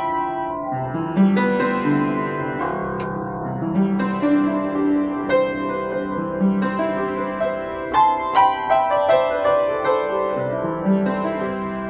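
Yamaha JU109 acoustic upright piano played with both hands: higher notes struck over lower notes that are held and left to ring.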